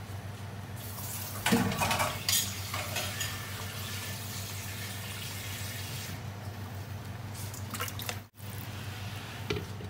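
Water being poured into a pan of simmering fish curry gravy, with a few knocks of a wooden spatula against the pan about a second and a half in, over a steady low hum. The pouring sound fades out after about six seconds, and the sound cuts out briefly near the end.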